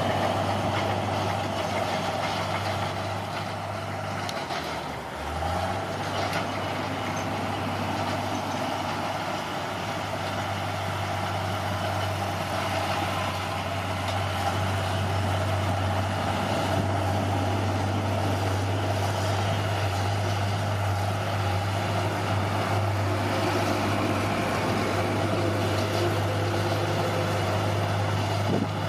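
Bulldozer's diesel engine running steadily at work, its low hum dipping briefly about five seconds in, with mechanical clatter and noise over it.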